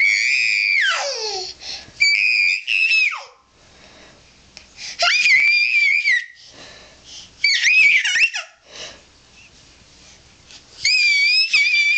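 A ten-month-old baby squealing: five high-pitched squeals of about a second each, separated by short pauses. The first squeal slides down in pitch at its end.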